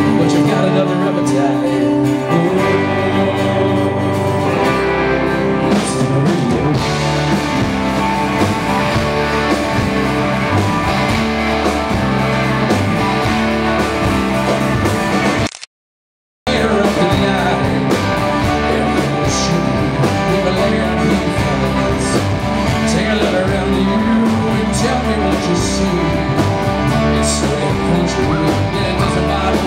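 Live band playing on amplified guitars, bass and drums, with singing. About halfway through the sound cuts out completely for about a second, then the music resumes.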